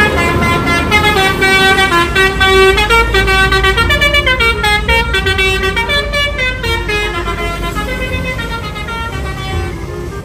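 Bus 'telolet' multi-tone horn playing a fast stepping melody, note after note, over a low engine rumble. It fades slightly in the last few seconds.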